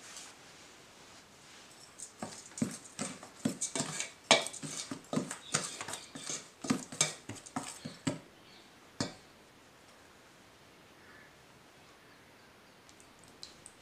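Metal spoon stirring dry flour and sugar in a stainless steel bowl, scraping and clinking against the sides in quick irregular strokes, with a single knock about nine seconds in.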